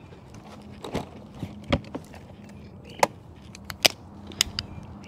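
Sharp clicks and knocks from a hard-shell rolling equipment case being opened and a folded tripod being lifted out and handled: about five separate snaps spread over a few seconds, the loudest about three and nearly four seconds in.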